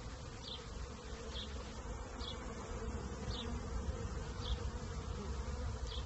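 Many honey bees flying around busy hive entrances, a steady dense buzzing hum.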